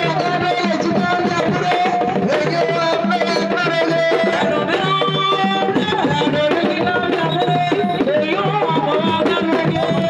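Music led by hand drums, with a held melody line that shifts pitch every second or so over a dense, steady drum rhythm.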